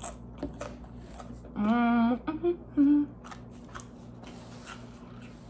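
A woman chewing a mouthful of pizza with small wet mouth clicks; about a second and a half in she hums a held "mmm" with her mouth full, followed by two short hums.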